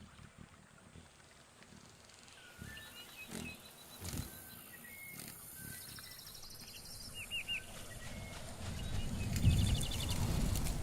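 Wildlife sound-effect ambience: short high animal chirps and trills over a few low thuds, with a deep rumble growing steadily louder in the last few seconds.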